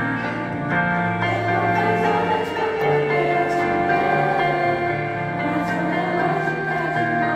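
Youth choir of children and teenagers singing, the voices holding long, sustained notes.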